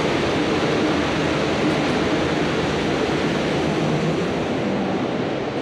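Steady rushing of a fast mountain river, an even wash of water noise that does not let up.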